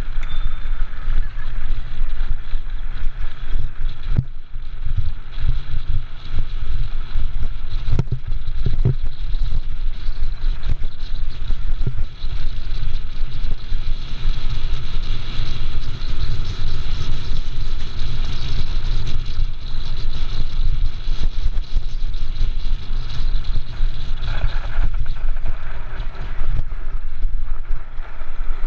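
Mountain cart's wheels rolling fast over a gravel track, a loud continuous rumble mixed with wind buffeting, muffled through a camera's waterproof housing. A few sharp knocks from bumps come about four and eight seconds in.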